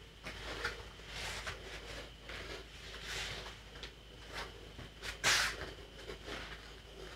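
Faint scuffing and breathing from a person moving barefoot on a foam floor mat: a string of short, soft rushes of noise, with one louder rush about five seconds in.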